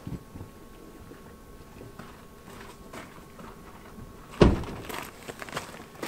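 Quiet outdoor ambience, then a single loud thump about four and a half seconds in, followed by footsteps on gravel.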